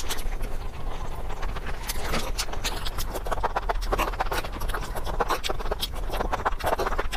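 Close-miked eating sounds: quick, irregular wet clicks of chewing and lip smacking, thickening in the second half as strands of enoki mushroom in sauce are slurped into the mouth.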